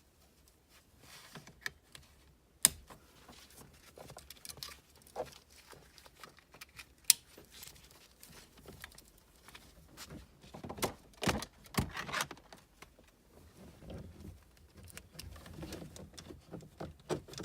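Plastic wiring-harness connectors being handled and plugged in, with scattered rustling and a few sharp plastic clicks.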